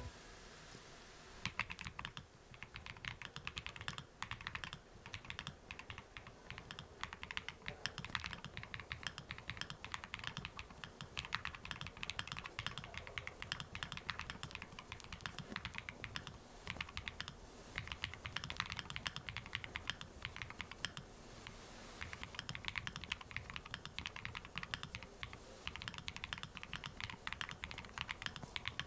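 Fast, irregular typing on a 67-key mechanical keyboard with purple switches and Botanical keycaps: a quick, uneven run of keystroke clicks, fairly soft, starting about a second and a half in.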